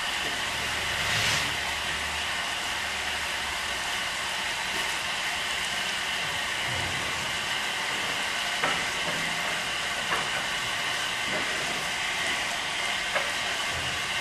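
Steam hissing steadily from a standing LBSCR Billinton 0-6-2T radial tank steam locomotive, with a few light clicks in the second half.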